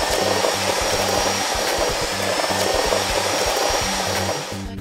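Steady whirring, rushing sound effect of a cartoon cement mixer truck pouring concrete from its chute, easing off near the end. Low pulsing notes run underneath.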